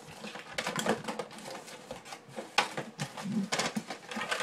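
Irregular small clicks, taps and rustles of hands moving things about on a tabletop, searching for a dropped tiny plastic doll accessory.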